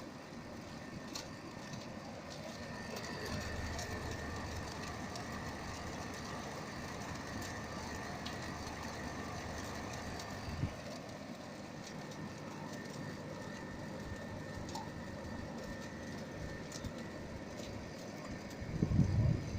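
Steady mechanical running noise with a faint high whine, a single knock about ten seconds in, and a louder low rumble near the end.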